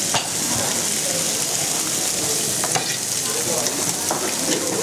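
Beef steaks sizzling on a ridged grill pan over a tabletop burner: a steady frying hiss, with a few sharp clicks.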